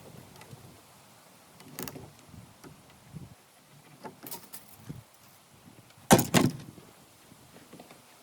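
A few scattered knocks and clunks, the loudest a sharp double bang a little after six seconds in.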